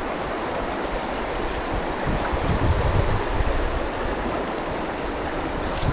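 Shallow river running over a bed of stones and boulders: a steady rush and babble of water.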